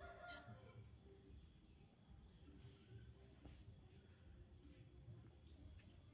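Faint rural outdoor ambience: small birds chirping repeatedly in the background over a low rumble, with one brief click just after the start.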